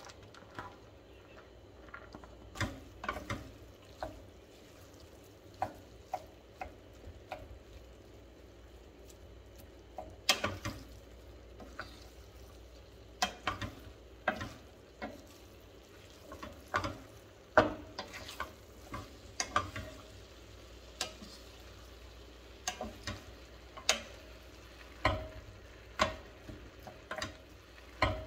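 Wooden spoon stirring cooked rice into ground beef in a stainless steel pot: irregular scrapes and knocks of the spoon against the pot, over a faint steady sizzle.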